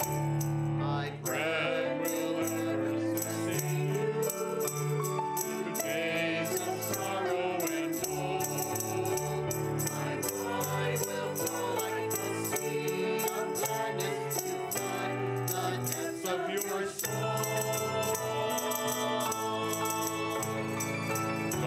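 Church gathering hymn: choir and congregation singing with instrumental accompaniment and a steady rattling percussion beat.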